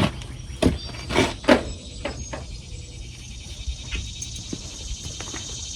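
A few sharp knocks and clatters in the first second and a half, then lighter scattered ticks over a low steady rumble.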